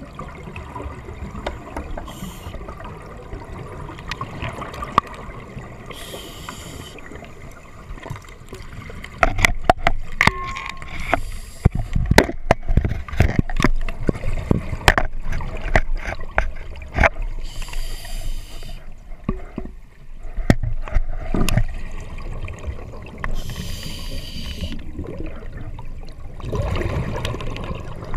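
Scuba diver breathing through an open-circuit regulator, heard underwater: a short inhalation hiss about every five seconds, with exhaled bubbles gurgling between breaths. Many sharp clicks and knocks, densest from about nine to seventeen seconds in.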